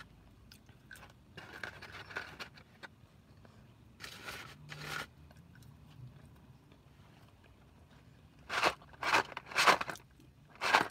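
Close-up eating sounds: quiet chewing and crunching, then several loud, sharp crunches in quick succession near the end.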